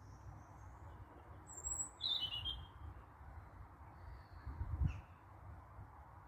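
European robin singing: a few thin, high whistled notes and a short, rapid twittering phrase about two seconds in, over a low rumble. A single dull bump about five seconds in is as loud as the song.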